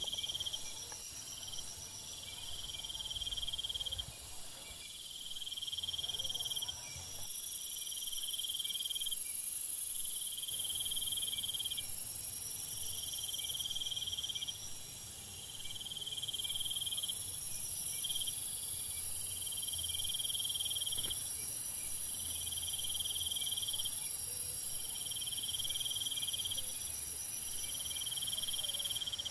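Insect chorus: a high, steady buzzing, louder for stretches, over a repeated trill of about a second that comes roughly every second and a half.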